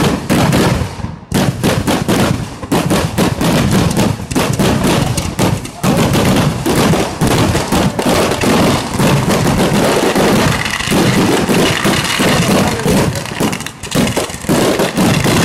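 Vedikettu fireworks going off in a rapid, almost unbroken string of bangs and crackles from ground-fired firecrackers and aerial shells, dense like machine-gun fire.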